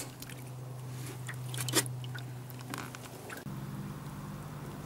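Fish being handled in a tub of water and a landing net: a few light clicks and taps over a steady low hum.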